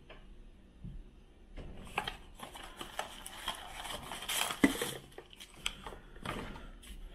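Hands handling packaging and small plastic camera accessories: irregular rustling with sharp clicks and taps, starting about a second and a half in and loudest a little past the middle.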